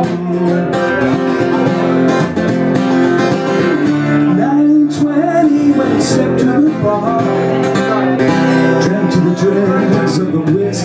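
A man singing while strumming a steel-string acoustic guitar.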